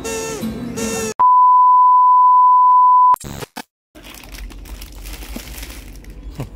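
Background music breaks off about a second in and gives way to a loud electronic beep: one pure steady tone of the censor-bleep kind, held for about two seconds, that stops abruptly. After a brief gap there is faint shop ambience with light rustling of plastic saree wrappers.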